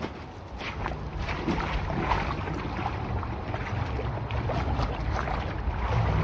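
Shallow stream water flowing and sloshing, with irregular splashes. The rushing noise grows steadily louder.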